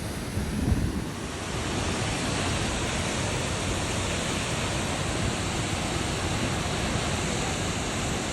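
Waterfall rushing, a steady even hiss of falling water, with a brief low rumble of wind on the microphone just under a second in.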